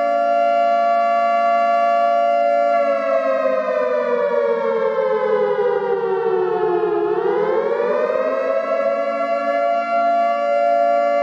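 Civil defense siren sounding a steady chord of several tones at once. About three seconds in, the whole chord slides down in pitch for some four seconds, then swings back up within about a second and a half and holds steady again.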